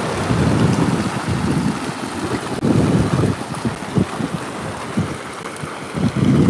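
Wind gusting against the microphone over the wash of surf, with a few brief sharp knocks.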